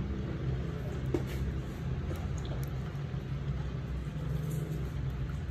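A steady low mechanical hum, with a few faint, sharp clicks of steel cuticle nippers snipping at the edge of a toenail.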